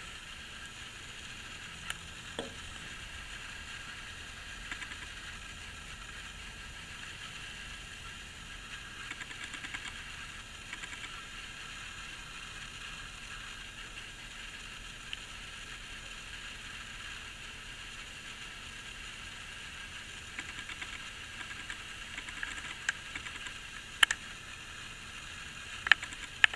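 Steady hiss with a few sharp clicks, a couple about two seconds in and a louder cluster near the end.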